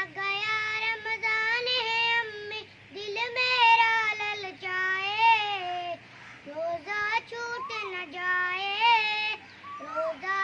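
A child's high voice singing a naat, an Urdu devotional song for Ramadan, in long ornamented phrases with short breaths between them.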